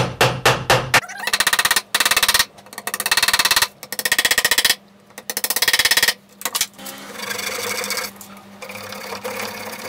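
A wooden mallet knocks a chair joint home with quick, evenly spaced blows. About a second in it gives way to a flush-cut hand saw trimming protruding dowel pegs flush with the rail, in rasping strokes of just under a second each with short pauses. For the last few seconds the sawing is quieter and steadier.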